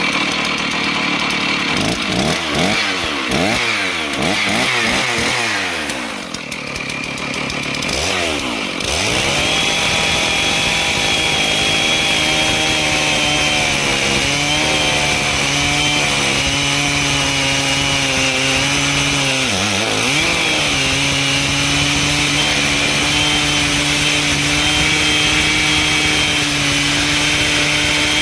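Chainsaw on a homemade chainsaw mill, revved up and down several times for the first few seconds, then held at steady high speed as it cuts along a log. The engine speed dips briefly about twenty seconds in.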